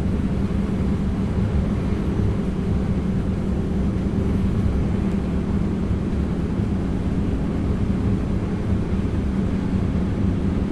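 Steady running noise of an NS DDZ double-deck electric train heard from inside the driver's cab: a constant low rumble with an even hum over it.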